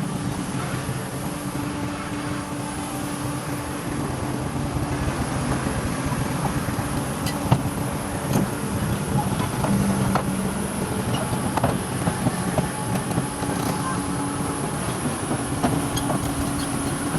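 Tracked excavator's diesel engine running steadily, with a few sharp knocks.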